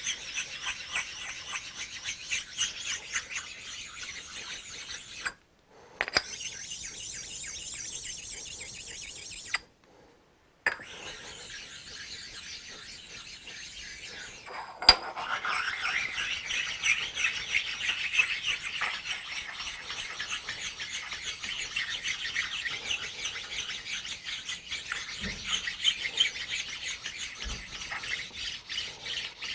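Precision ground sharpening stones rubbed back and forth over a mill-drill table, a steady high scraping hiss of stone on metal as they take the tops off raised dings. It cuts out twice briefly in the first third, and there is one sharp click about halfway.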